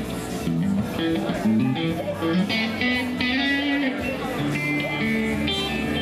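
Band playing live, with electric guitar notes over a moving bass line.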